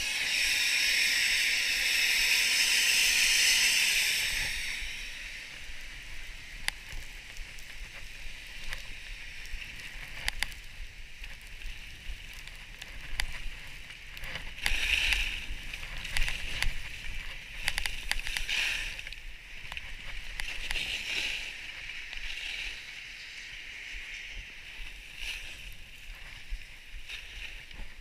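Skis sliding over fresh snow: a steady hiss, louder for the first four or five seconds, then quieter, with scraping swells now and then and small clicks.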